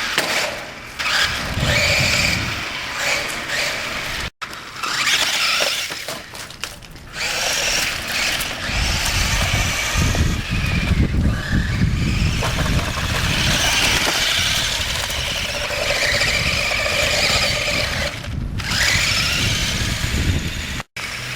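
Electric drive motor and gears of a toy-grade RC monster truck whining as it is driven at full speed, the whine rising and falling as it accelerates and brakes, with low rumbling at times. The sound cuts out for an instant about four seconds in and again near the end.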